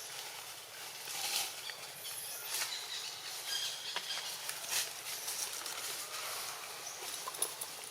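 Outdoor ambience of irregular rustling and crackling, with a few soft clicks and faint high chirps.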